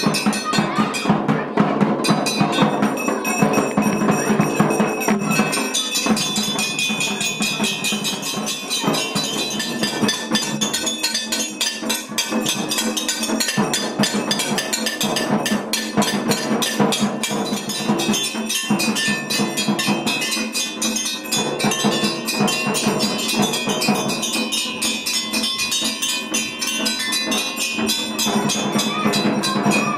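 Temple bells clanging rapidly and without a break, with drum-like percussion, rung during worship at the shrine.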